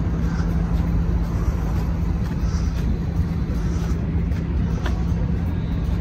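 Steady low hum of the moored Asuka II cruise ship's diesel machinery running, a constant drone over a deep rumble.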